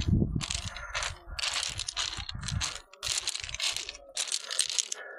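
Footsteps crunching and clattering over beach stones, a step about every half second to second. A low rumble of wind on the microphone runs under the first half.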